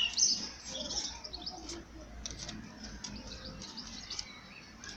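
Small birds chirping, many short high calls, busiest in about the first second and thinning out after.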